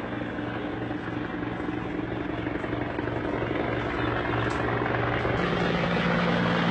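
Engine running steadily, a low hum with a slight regular pulse. About five seconds in, a second, higher tone joins and the sound grows a little louder.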